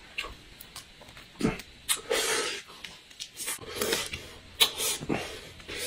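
Boiled crayfish shells clicking and crackling as one is picked off the plate and twisted apart by hand, with a few short breaths through the nose.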